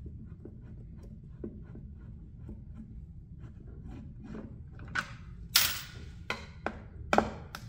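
Phillips screwdriver turning self-tapping screws out of a plastic motorcycle airbox, with faint small ticks and scrapes. Near the end come a few louder sharp clacks and short plastic rattles.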